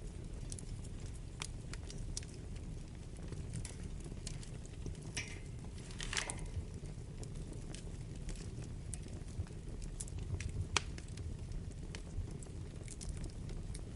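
Wood fire burning in a fireplace: a steady low rumble of flames under scattered crackles and sharp pops, with a louder cluster of pops about five to six seconds in and a single sharp snap near eleven seconds.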